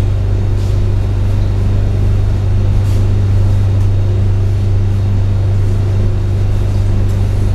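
A loud, steady low electrical hum over a hiss, holding one pitch without change.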